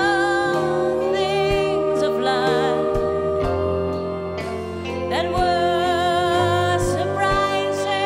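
Live song: a woman singing long held notes with vibrato over a sustained instrumental backing.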